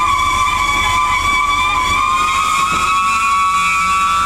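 Plasser & Theurer 08-16/4x4 C80-RT track tamper's running gear squealing as it rolls slowly past: one long, high, metallic squeal that rises slightly in pitch and cuts off right at the end, over a low rumble.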